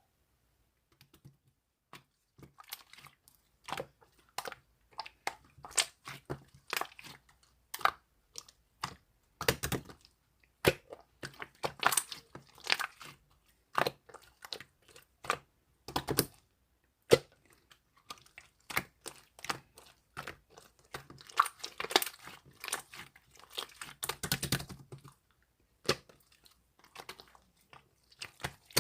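Close, irregular crackling and clicking, with crinkly runs that grow denser in two stretches, about a third of the way in and again near the end.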